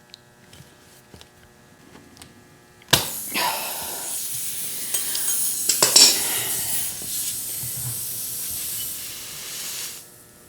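Air hissing out of a tire through a nail puncture as the nail comes free. A few light tool clicks, then the hiss starts abruptly about three seconds in and runs steadily for about seven seconds before fading.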